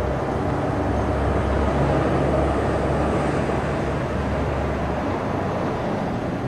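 Low, steady outdoor rumble of vehicle traffic, swelling about two seconds in and easing off near the end.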